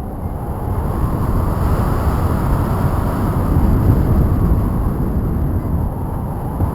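Airflow buffeting the microphone of a paraglider in flight: a steady low rumble of wind noise that swells a little in the middle.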